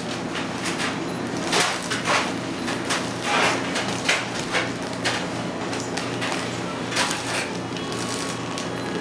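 Baking paper rustling and sliding over a stainless-steel counter as gloved hands handle it, in a string of short, irregular crinkles and scrapes. A steady low hum runs underneath.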